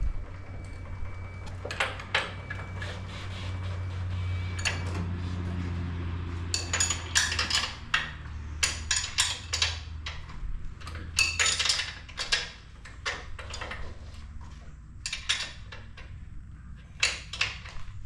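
Metal clinks and clicks of a wrench working the bed-rail bolts of a Wood-Mizer LT35 sawmill as they are tightened down, in irregular clusters that get busier after about six seconds. A low hum runs under the first half.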